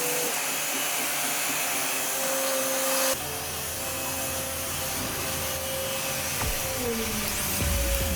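Steady mechanical whirring with hiss and a held whine. The sound changes abruptly about three seconds in, and the whine bends down in pitch near the end.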